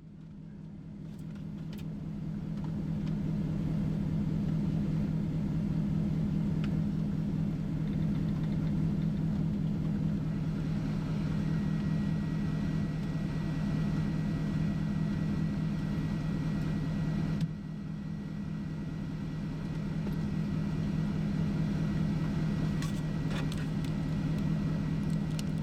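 A car driving: a steady low engine and road drone that builds over the first few seconds as it gets up to speed, then holds, with a brief dip about seventeen seconds in.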